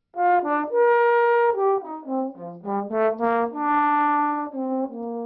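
Solo trombone playing a phrase of short detached notes and longer held ones that falls overall, ending on a long low note that fades away.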